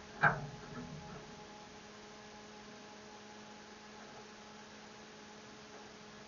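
A faint, steady electrical hum, with one sharp click shortly after the start.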